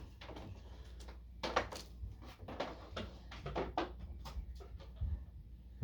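Scattered light knocks and clunks, about eight in all, from a large flat-screen TV and its wall mount being handled, over a steady low hum.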